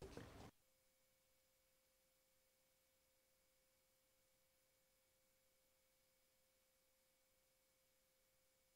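Near silence with a faint steady tone, after a brief sound at the very start that cuts off suddenly about half a second in.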